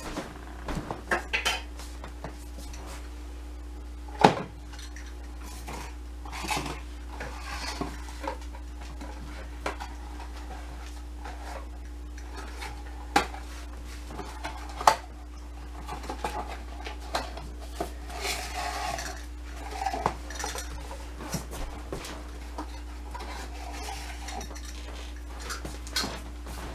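Scattered clinks, taps and knocks as a small glass jar is handled and small boxes are set out one by one on a hard floor while scent articles are laid for a dog's search game. The sharpest knock comes about four seconds in, with two more near the middle, over a faint steady hum.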